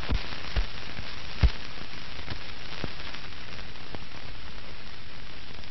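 Steady hiss and crackle of an old film soundtrack, with scattered pops, the loudest about one and a half seconds in.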